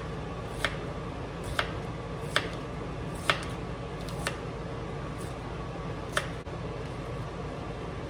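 Chef's knife chopping a piece of white onion on a plastic cutting board: about eight sharp taps roughly a second apart, stopping a little after six seconds in, over a steady low hum.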